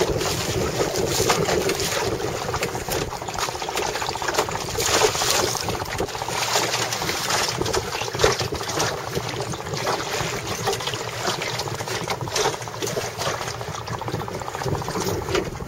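Water splashing and slapping against the hull of a Miracle sailing dinghy under way in choppy water, with wind on the microphone and irregular crackles throughout.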